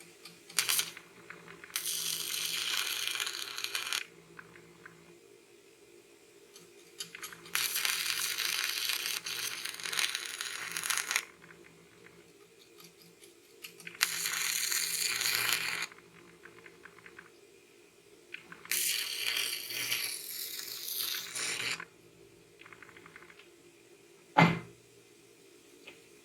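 Stick-welding arc from a YesWelder 205A burning a 6013 rod on galvanized steel tube, crackling and hissing in four runs of about two to four seconds each with short pauses between. Near the end comes a single sharp knock, the loudest sound in the stretch.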